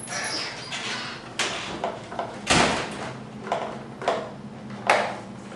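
Plastic floorboard panel of a scooter being worked loose by hand: a series of hollow plastic knocks and clunks, the loudest about halfway through.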